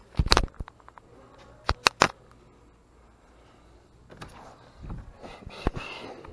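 A handful of sharp clicks and knocks, loudest just after the start and three more close together about two seconds in, then softer shuffling and thuds: door and handling noise from walking in off a wooden porch through the cabin's front door.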